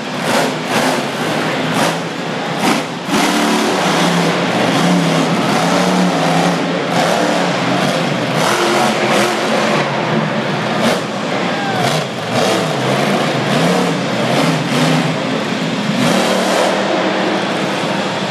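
Monster truck's supercharged V8 engine revving up and down again and again during a freestyle run, with sharp cracks here and there.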